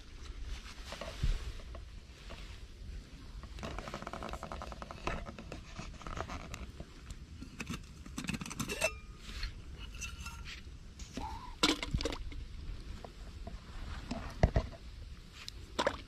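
Cookware and utensils being handled: scattered clinks, scrapes and knocks, a few of them ringing briefly with a metallic tone.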